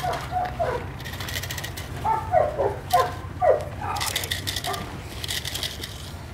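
Young dogs tugging on a rag toy, giving a string of short yelps that drop in pitch, several close together in the middle, over a steady low rumble.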